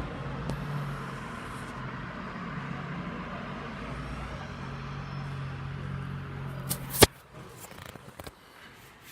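A steady motor-like drone with a hiss runs, then stops abruptly with one sharp, loud click about seven seconds in, leaving only faint small ticks.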